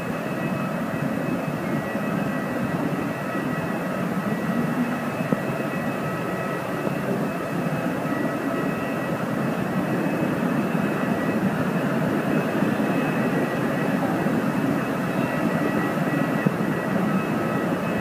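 Steady jet turbine whine over a low rumble, with a few high, steady whistling tones; it grows a little louder about halfway through.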